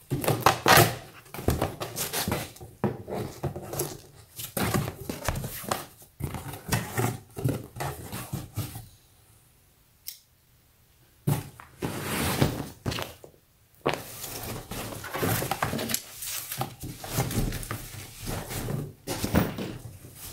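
Cardboard box being opened by hand: a blade slitting the packing tape, the flaps pulled open with cardboard scraping and thunking, then a comforter in a plastic zippered bag lifted out with rustling and bumps. A short quiet pause comes about halfway.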